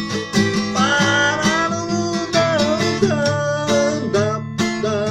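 Acoustic guitar strummed in a steady rhythm, with a man's voice singing long, sliding notes over it from about a second in.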